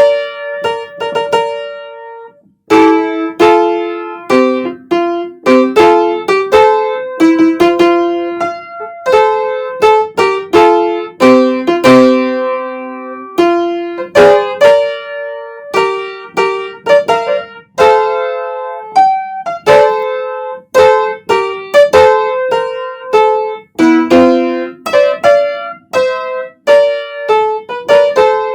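Piano playing a melody over chords: a tune that music sirens (Japanese outdoor chime sirens) play. A brief pause about two seconds in, then continuous playing.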